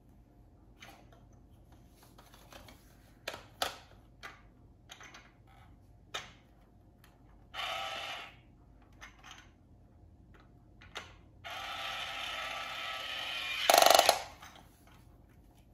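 Red battery-powered toy drill whirring in short runs against a plastic take-apart toy car: about a second near the middle, then about two seconds near the end that finish loudest. Small plastic clicks and taps come between the runs.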